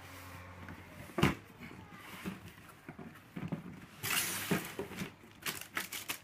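Large cardboard box of a Perfect Grade Gunpla kit being handled: a sharp knock about a second in and a few light taps, then cardboard scraping and rustling from about four seconds in as the lid is slid up off the box, ending in several quick clicks.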